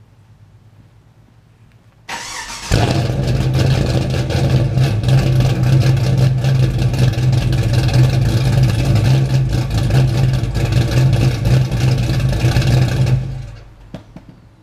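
The GTO's cammed LQ9 6.0-litre V8 starts. The starter cranks briefly about two seconds in and the engine catches within about half a second. It then runs loudly and steadily through the exhaust for about ten seconds before shutting off near the end.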